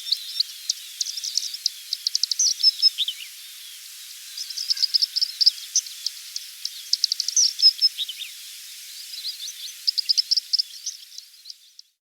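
Songbirds chirping and trilling over a steady hiss of countryside ambience: three runs of quick, high repeated notes. The sound fades out near the end.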